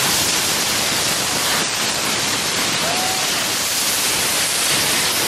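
Many hand-made gunpowder rockets firing together, a continuous loud rushing hiss with no breaks.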